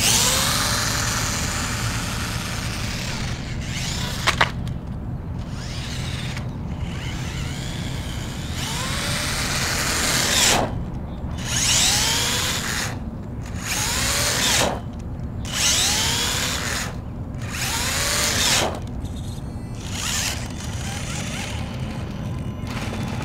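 RC rock crawler with a Castle Mamba X ESC and brushless motor run at full throttle in short bursts: the motor's whine rises in pitch with each acceleration, about seven times in the second half. A sharp click about four seconds in.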